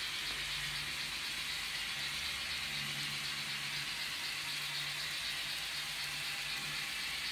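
N-gauge model train running along the layout track: a steady rattling hiss of wheels and motor, with a low hum that comes and goes.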